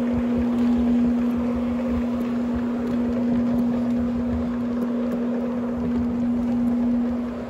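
Electric carpet-cleaning floor machine running: a steady motor hum over a low, uneven rumble as its round pad works the carpet.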